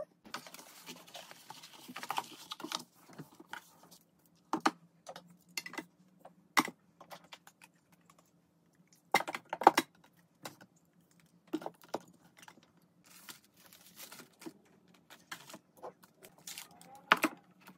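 Irregular clicks and knocks of plastic makeup palettes and compacts being handled and set into a drawer, and of drawers being pulled open, with a louder cluster of knocks about ten seconds in.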